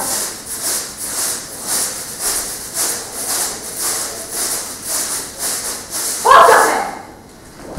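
A steady rhythmic hissing rattle, about two strokes a second, with a short falling vocal cry near the end.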